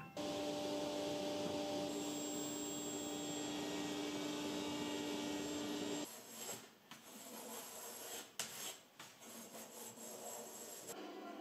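A sliding table saw running with a steady hum for about six seconds, then, after it stops abruptly, a small block plane shaving a thin wooden strip in a few short rasping strokes.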